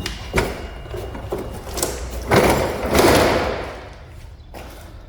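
Sledgehammer blows on a steel suspension bolt, driving out the stuck rear control-arm bolt of a Dodge Dakota pickup: several sharp metallic strikes, the two loudest about two and a half and three seconds in, the last one ringing on briefly.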